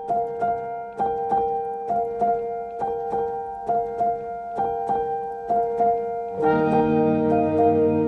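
Soft background piano music: a repeating figure of single struck notes, about two a second, joined by fuller sustained lower chords about six seconds in.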